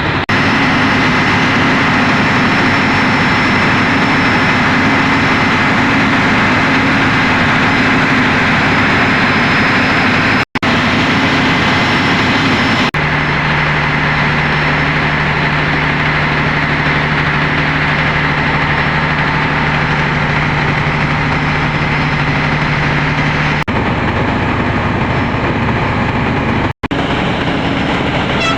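Train locomotive engine running steadily with a low, even hum. The tone shifts abruptly twice and cuts out for an instant twice.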